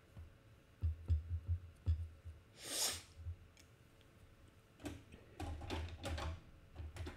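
Soft low thumps and knocks at a desk, in two short runs, with faint clicks and one brief hiss about three seconds in.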